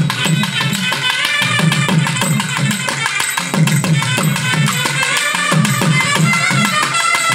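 Tamil melam band playing: double-headed barrel drums beaten with sticks in a fast, dense rhythm, with brass trumpets playing a melody over them.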